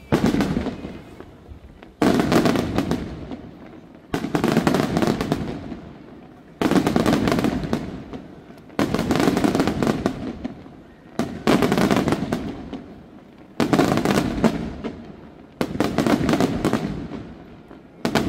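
Aerial firework shells bursting in a steady sequence, about one every two seconds and nine in all. Each burst is a sudden loud bang followed by a dense crackle that fades before the next.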